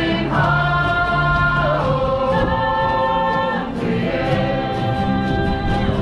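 Shanty band performing live: several voices singing together in chorus, holding long notes, over strummed acoustic guitars with a steady beat.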